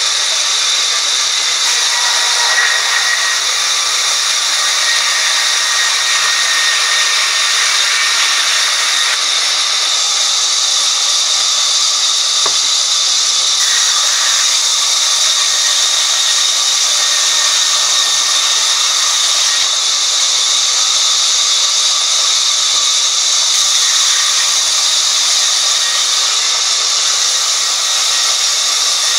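Sawmill band saw running and ripping a long board of red hardwood as it is fed through by hand: a loud, steady hiss with a steady high whine.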